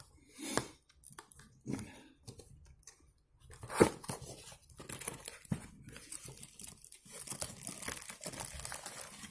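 Product packaging being opened and handled: cardboard box and wrapping rustling, with scattered knocks and one sharper knock about four seconds in. The rustling grows denser over the last two seconds.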